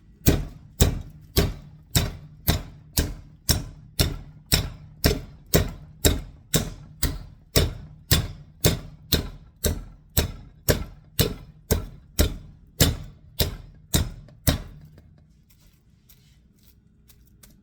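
A meat pounder beating a butterflied chicken breast flat through plastic wrap: steady, evenly spaced blows, about two a second, that stop a few seconds before the end.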